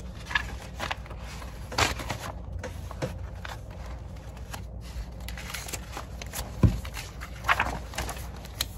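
Papers and handouts being rustled and shuffled by hand during a search, with scattered short rustles and clicks and one sharp thump about two-thirds of the way through.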